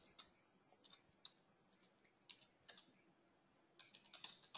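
Faint computer keyboard typing: scattered single keystrokes, coming closer together near the end.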